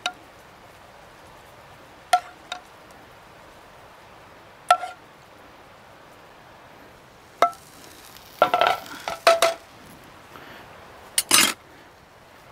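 Metal serving spoon clinking and scraping against a metal sauté pan as gravy is spooned out onto a plate: sharp clinks, each with a short ring, a few seconds apart at first and then coming quickly in clusters over the last few seconds.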